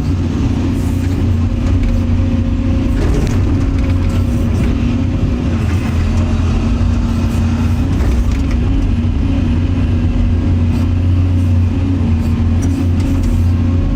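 Excavator's diesel engine running steadily under working load, a loud low drone heard from the operator's cab, with a few short clicks over it.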